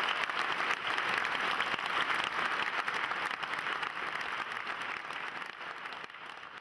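Audience applauding, a dense patter of many hands clapping that gradually dies away in the last couple of seconds.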